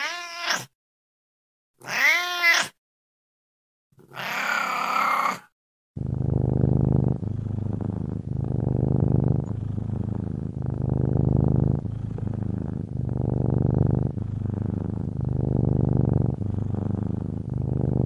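An old cat meowing three times, the third call hoarser and more drawn out. Then, from about six seconds in, a cat purring steadily, swelling and easing with each breath in and out, a little over a second apiece.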